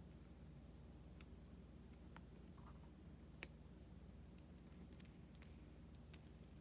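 Faint, scattered clicks of small diecast model car parts (wheels and axles) being handled and fitted, with one sharper click about halfway, over a low steady hum.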